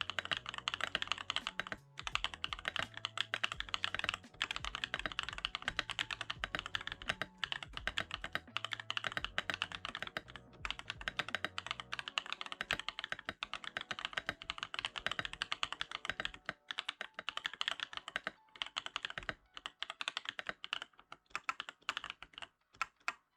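Typing test on a mechanical keyboard fitted with budget AliExpress keycaps: a fast, continuous clatter of key presses, broken by a few short pauses.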